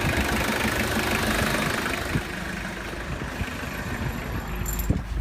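Mitsubishi Shogun's 4M40 2.8-litre four-cylinder turbodiesel idling steadily while still cold. There are two short sharp knocks, one about two seconds in and one near the end.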